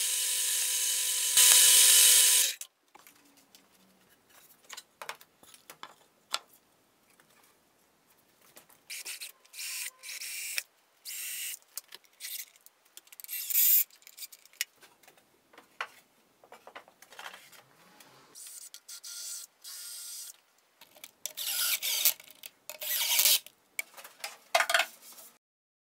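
A drill press runs and bores into a wooden board for about the first two and a half seconds, then stops suddenly. After that a cordless drill-driver runs in repeated short bursts, driving screws into the wooden cabinet panels, with clicks and knocks from handling the wood in between.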